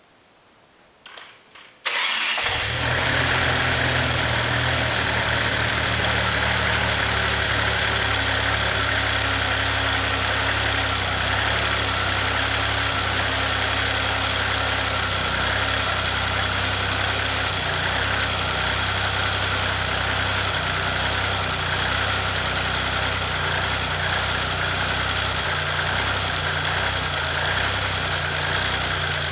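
Maserati engine, its timing belt freshly replaced, starting about two seconds in after a couple of short clicks, then idling steadily.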